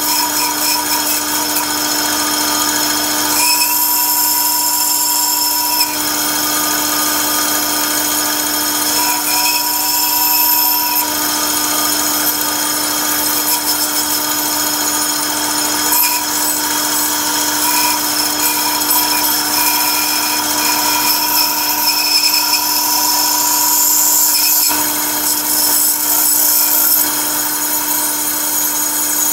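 Bandsaw running and cutting through a wooden block, a steady machine hum under the blade's cutting hiss, which changes several times as the wood is fed and turned.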